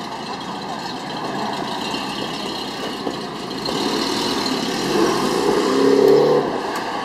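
An old sedan's engine driving slowly past close by, growing louder to a peak about six seconds in and then easing off, over steady street noise.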